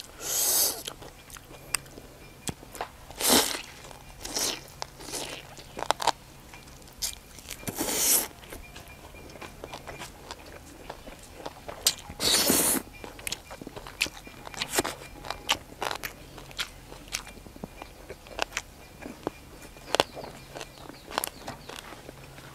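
Close-up eating sounds: rice noodles slurped loudly into the mouth a few times (about half a second, 3, 8 and 12 seconds in), with crisp crunching and wet chewing of raw vegetables and salad in between.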